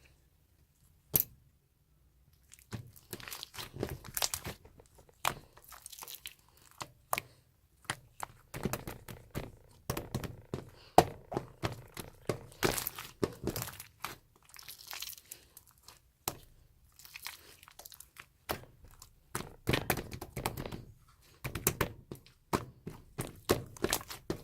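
Hands stretching, folding and pressing a tough, chewy slime, making dense irregular crackling clicks and pops. It starts about two and a half seconds in, after a single click.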